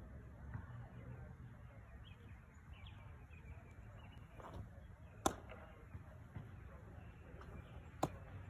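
A baseball smacking into a leather glove twice: two sharp pops nearly three seconds apart.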